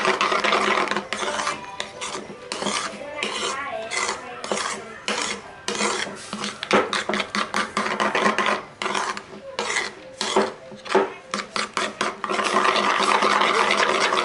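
Metal spoon stirring thick mayonnaise sauce in a bowl: quick, repeated scraping and rubbing strokes against the bowl, turning into a steadier, louder scraping near the end.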